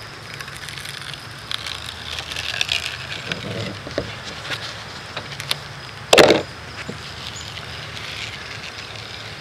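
Small scratches and crackles as a knife blade is worked under a rubber roof gasket, peeling it and its thin plastic backing membrane off the roof, with one louder short noise about six seconds in.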